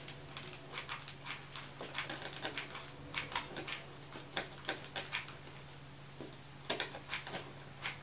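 Hot glue gun clicking as its trigger is squeezed over and over to feed out glue, in short irregular ticks a few times a second.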